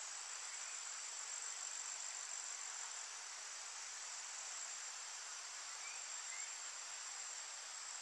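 Woodland ambience of insects trilling steadily in a high, even tone over a faint background hiss, with two faint short rising chirps about six seconds in.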